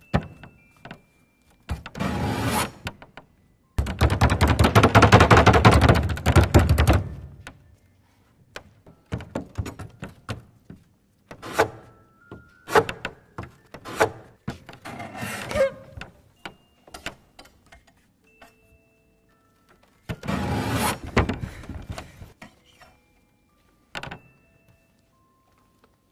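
Knife-tipped ballet pointe shoes striking and scraping a hard floor: scattered knocks and clicks, with bursts of rapid scratching, the longest and loudest about four seconds in and another near the end.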